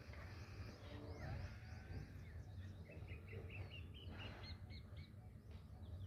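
Faint morning birdsong: several small birds chirping and whistling, with a quick run of repeated chirps about three seconds in, over a low steady rumble.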